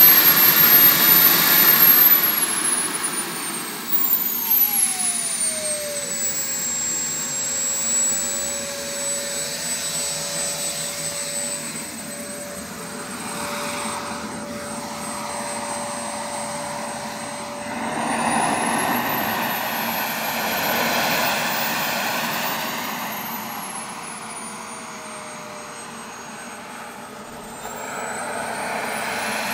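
Elite Aerosports Havoc RC turbine jet making flying passes: a high turbine whine with a rushing roar. It is loudest at the start, where the whine drops in pitch as the jet goes by. It holds steady, then rises and falls again with another pass, and grows louder near the end.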